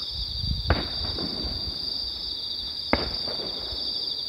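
Aerial fireworks bursting with sharp bangs, two of them about two seconds apart, each with a short tail after it, over the steady high chirring of insects.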